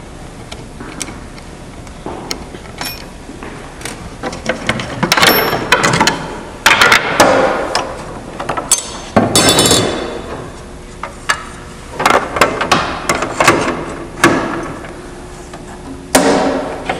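Irregular metal clanks and clinks, some ringing briefly, as a table saw's splitter and blade-guard assembly and its throat plate are handled and fitted into place.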